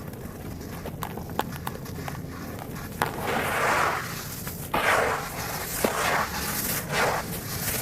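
Dry, gritty dirt crunching and crumbling: small scattered crackles, then about four gritty crunches from about three seconds in.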